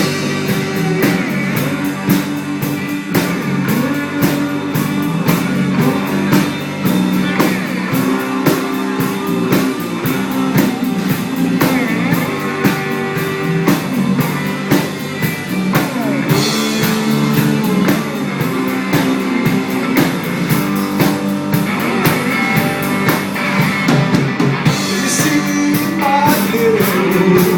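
Rock band playing an instrumental passage of a blues song on guitar and drum kit, with a steady beat.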